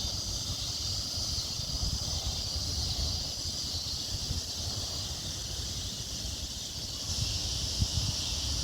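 Steady outdoor insect chorus, a constant high buzzing hiss, with a low rumble of wind on the microphone underneath.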